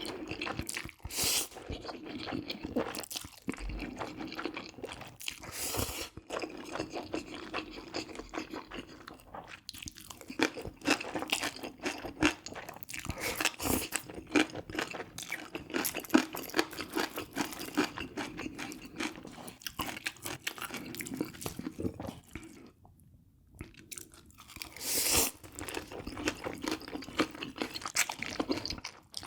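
Close-miked eating: a person biting and chewing crisp food, with a dense run of crunching clicks and a short pause about two thirds of the way through.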